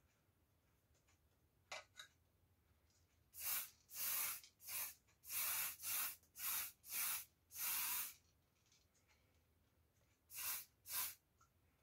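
Restored pump oil can being worked by its thumb pump, the spout spitting short, noisy squirts. Two faint clicks come first, then a quick run of about eight squirts, and two more near the end.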